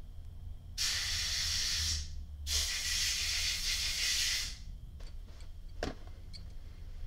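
Two bursts of compressed air hissing, a short one and then a longer one, blowing alcohol residue off a just-cleaned petrol lighter's chimney to dry it. A faint click follows near the end.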